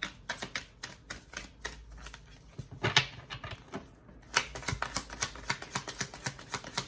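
A tarot deck being shuffled by hand: a quick run of card clicks, several a second, pausing briefly a little past the middle with a louder snap on either side of the pause.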